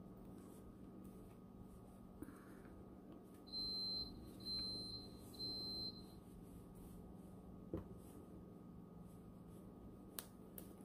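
Three short high-pitched electronic beeps, each about half a second long and about a second apart, from an appliance or alarm. A couple of faint clicks follow later.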